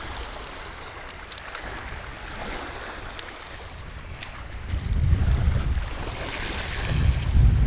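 Small sea waves washing over shore rocks, with wind buffeting the microphone in low rumbling gusts that grow stronger from about five seconds in.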